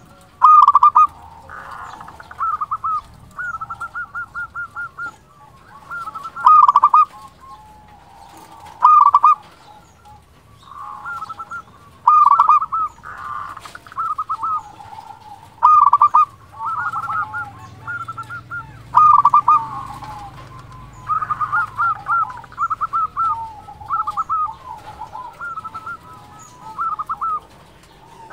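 Local Indonesian zebra dove (perkutut) singing in full, loud voice: repeated phrases of rapid, stuttering coos, a new phrase every two to three seconds.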